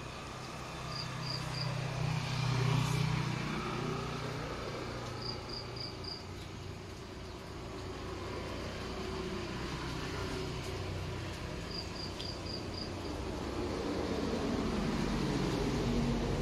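Outdoor ambience of motor vehicles passing, their engine hum swelling and fading twice, with three short bursts of high insect chirps, each three to five quick pulses.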